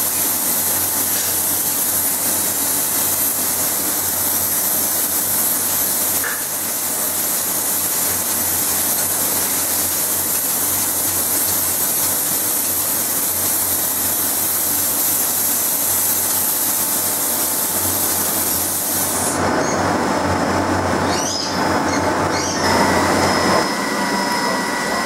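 Air spray gun hissing steadily as it sprays a finish onto a polyurethane armour piece, over a low hum. Roughly three-quarters of the way through the hiss stops and gives way to rougher workshop noise with a few clicks.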